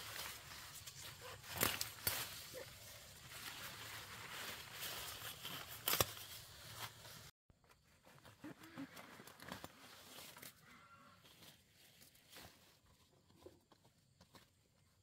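Leafy plant stems being pulled and cut with a knife, the dense leaves rustling, with a few sharp snaps in the first half. After an abrupt break about halfway through, there is only fainter rustling among the plants.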